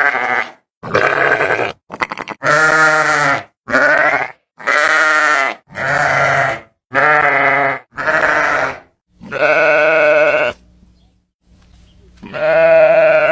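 An animal calling over and over: about ten loud, quavering calls of half a second to a second and a half each, with short gaps between and one longer pause near the end.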